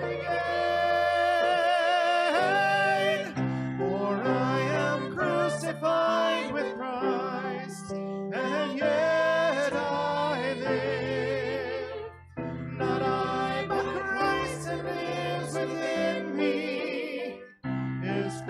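A small worship team singing a slow hymn-like song together into microphones, the voices held on long notes with vibrato over a steady, sustained low accompaniment, with short breaks between phrases.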